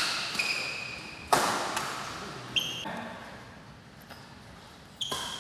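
Badminton rackets striking a shuttlecock during a rally: a loud sharp crack about a second and a half in, then further hits about halfway and near the end, each ringing on in the hall. Short high squeaks from players' shoes on the court floor come between the hits.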